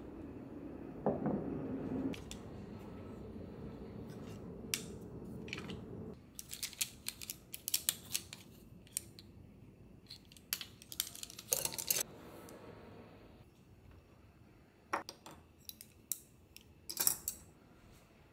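Wooden spoons, spatulas and lacquered wooden chopsticks clicking and clattering against each other as they are handled and set into a rattan utensil holder, with a knock about a second in and runs of sharp clicks in the middle and again near the end.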